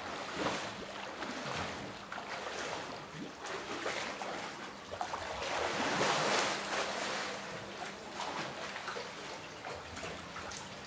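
Water splashing from a man swimming through floodwater, stroke after stroke, loudest about six seconds in. A faint steady low hum runs underneath.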